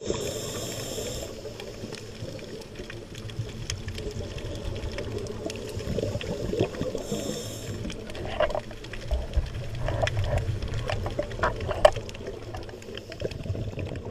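Underwater ambience picked up by a diver's camera: a steady watery rush with many scattered sharp clicks and crackles, and two brief hissing bursts, one at the start and one about seven seconds in.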